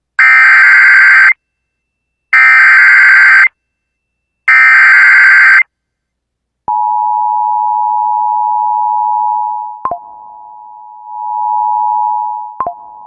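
Emergency Alert System header: three loud one-second bursts of SAME digital data tones with short silences between, then the steady two-tone EAS attention signal starting about seven seconds in. It dips in level twice with a click. Together they mark the start of an emergency alert broadcast, here a severe thunderstorm warning.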